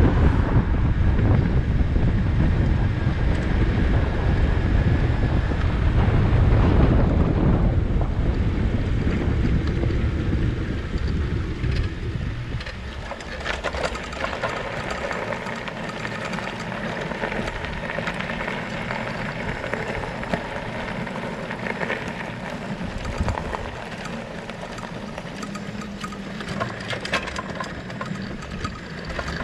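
Wind buffeting the microphone on a moving bicycle, heavy for the first dozen seconds, then easing to quieter tyre and road noise with scattered light clicks.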